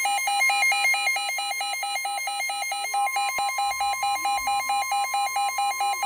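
Midland NOAA weather alert radio sounding its alarm for a severe thunderstorm warning: fast, even electronic beeps, about four a second. From about halfway a steady tone joins under the beeps, the weather radio broadcast's 1050 Hz warning alarm tone.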